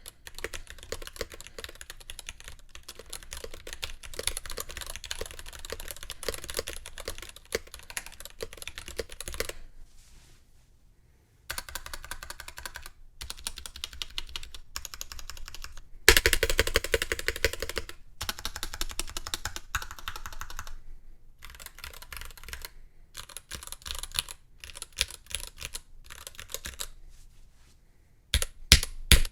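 Typing on a completely stock NovelKeys NK65 Entry Edition mechanical keyboard with unlubed Gateron Black Ink linear switches on an aluminum plate: a dense, fast clatter of keystrokes. It breaks off for about a second and a half some ten seconds in, grows louder for a couple of seconds past the middle, and ends with a few heavy separate key strikes.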